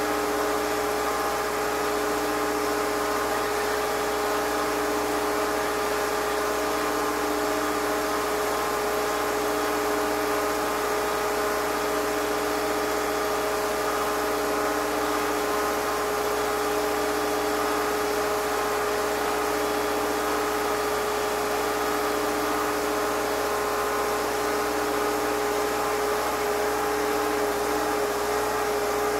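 A machine running steadily with a humming drone made of several steady tones. A lower tone swells and fades about every two seconds.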